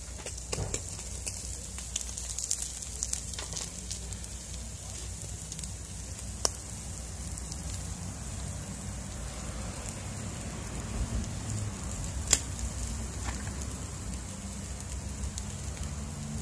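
Marinated yellow croaker sizzling in a wire grilling basket over a charcoal fire, with a steady hiss, scattered crackles from the coals, and two sharp pops, about six and twelve seconds in.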